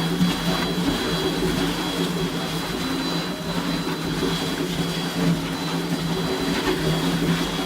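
Planetary concrete mixer running steadily while mixing ultra-high-performance concrete with steel fibres, a constant mechanical hum with a faint high whine over it.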